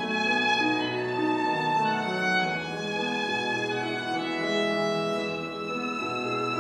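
Violin playing a melody in held notes over a Steinway grand piano accompaniment.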